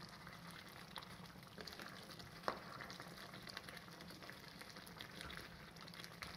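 Crab roast masala sizzling faintly in the pan with small pops as its gravy cooks down, and one sharper click about two and a half seconds in.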